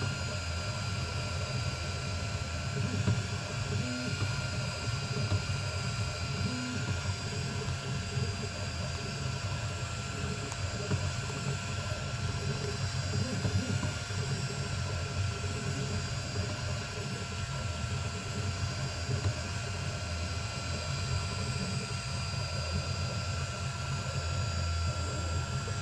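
Laser engraver running while it engraves: a steady mechanical whir with a few constant tones over a low, unsteady hum, from the laser head's cooling fan and the gantry's drive motors.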